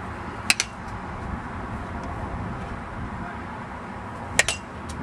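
A bat hitting plastic practice balls twice, about half a second in and again near the end; each hit is a sharp double crack.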